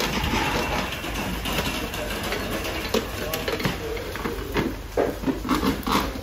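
Clay tagine lids knocking and scraping on their earthenware bases as they are lifted and set back, a run of irregular clatter that grows busier about halfway through.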